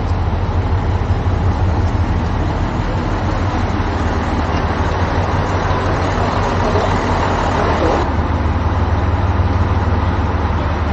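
Diesel railcar engines running steadily beside the platform, a low drone with a wash of noise over it.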